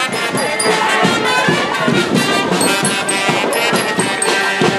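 Brass band music playing, with voices of the crowd mixed in.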